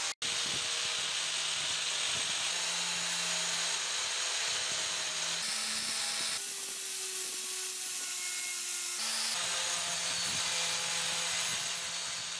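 Angle grinder with a wire cup brush scouring rust off a steel kukri blade: a steady motor hum under a harsh scratching hiss of the wires on the rusted metal. The sound cuts out briefly just after the start and changes character a few times at edits.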